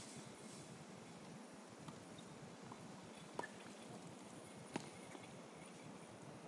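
Two sharp tennis-ball impacts, about a second and a half apart, over faint background noise during ground-stroke practice.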